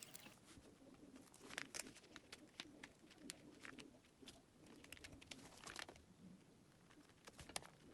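Faint scattered clicks and light taps, as of small objects being handled, with a faint low wavering hum beneath.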